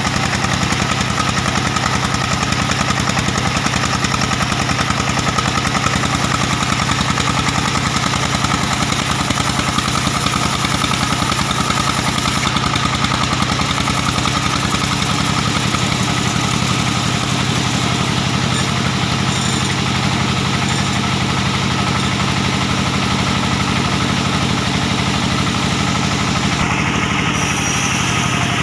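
The diesel engine that drives a band sawmill, running steadily with a fast, even beat.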